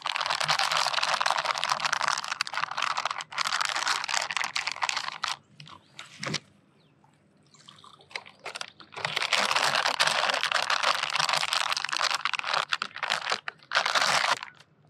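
Close crinkling and crunching handling noise made of many small clicks, in two stretches of about five seconds each with a lull of a few seconds between.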